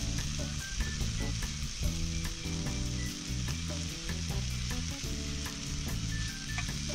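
Onions, put into the pan frozen, sizzling in a frying pan over a small butane gas cooker, a steady frying hiss. Under it runs light background music with held notes that change every half-second or so.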